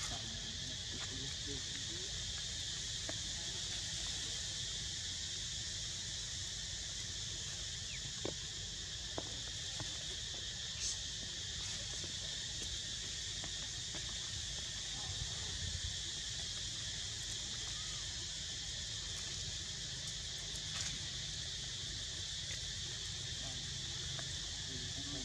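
Steady high-pitched drone of an insect chorus, with a low rumble underneath and a few faint clicks and short squeaks.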